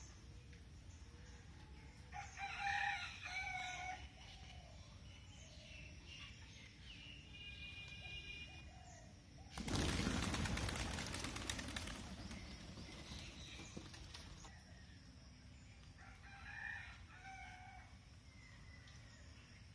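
A rooster crowing, loudly about two seconds in and again more faintly near the end. Between them come a higher, thinner bird call and a loud rushing noise lasting about two seconds.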